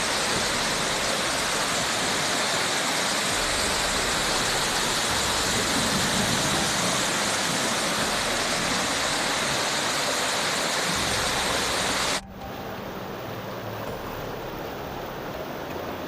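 Steady rushing of flood or storm water. About twelve seconds in it cuts abruptly to a quieter, duller rushing noise.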